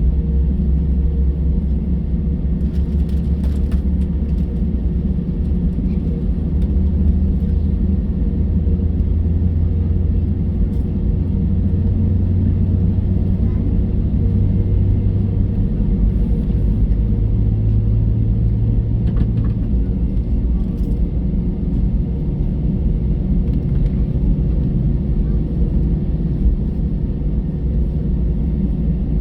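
Airbus A320 cabin during taxi: steady low rumble of the idling jet engines and rolling aircraft, with a constant hum and a few light rattles.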